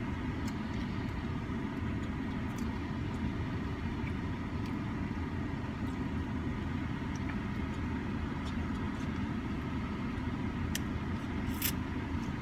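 Steady low hum of a car's engine idling, heard from inside the cabin, with a brief sharp click near the end.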